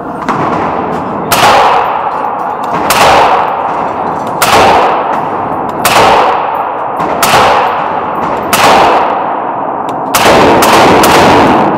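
Faxon ARAK semi-automatic rifle fired shot by shot, about eight or nine shots spaced roughly a second and a half apart, each with a long ringing tail.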